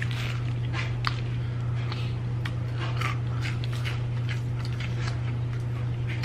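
A person eating fried chicken and cheese-dipped potato wedges close to the microphone, with irregular wet smacks, bites and chewing clicks. A steady low hum runs underneath.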